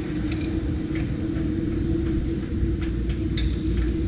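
Steady low hum with a held tone, with a few small, sharp metallic clicks and taps as a piston-stop position pin is fitted into an engine cylinder.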